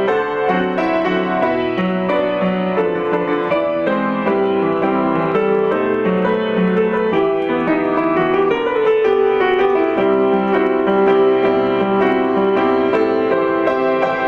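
Instrumental passage of a song, with a piano-like keyboard carrying the melody over held chords.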